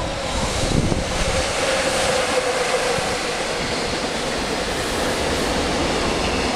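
Electric-locomotive-hauled container freight train running through the station: a steady rush of wheel-on-rail noise, with a humming tone over the first few seconds.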